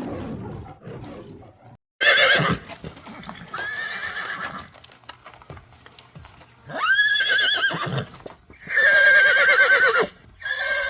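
Horse whinnying several times in loud, wavering, pitched calls, about two seconds in, again around seven and nine seconds, and once more near the end.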